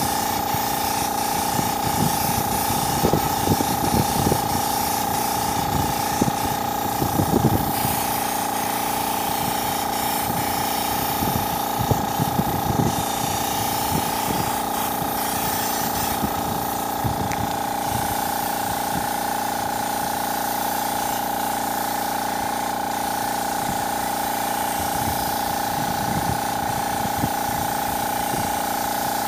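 Air-fed cup spray gun hissing as it sprays enamel paint, over the steady hum of the air compressor that feeds it. A few soft low knocks are scattered through the first half.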